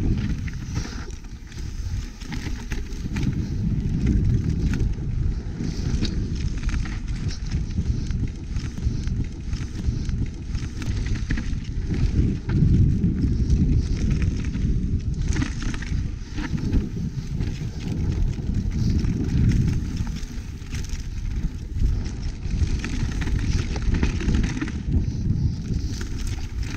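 Mountain bike riding down a dry dirt trail: tyres rolling over dirt and leaves, with a constant low rumble of wind on the microphone and frequent sharp rattles and knocks from the bike's chain and frame over bumps.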